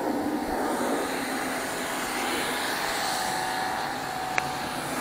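Steady mechanical hum with a faint steady tone in it, and a single sharp click about four seconds in.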